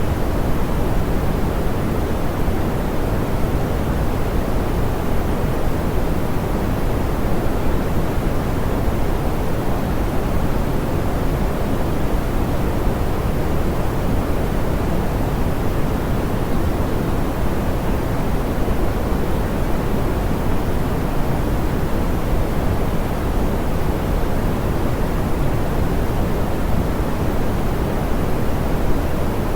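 Steady, smoothed pink noise: an even, soft hiss weighted toward the low end, with no change or events.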